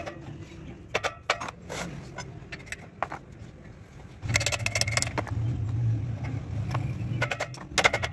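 Metal clinks and knocks of tools and tractor clutch parts being handled, with a steady low hum from about four seconds in until shortly before a quick run of clicks near the end.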